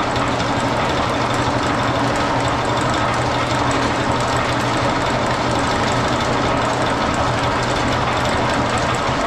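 A homemade Pullmax-style power hammer running, its electric motor and belt drive working the ram in a loud, steady, rapid mechanical clatter.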